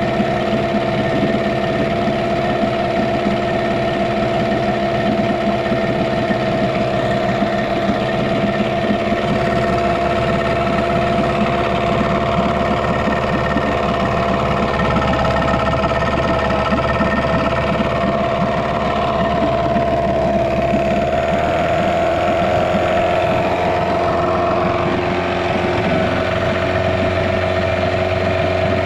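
Yamaha 6 hp two-stroke outboard running steadily in a test drum of water, its propeller churning the water. A thin cooling-water stream is coming from the tell-tale, so the water pump is pumping.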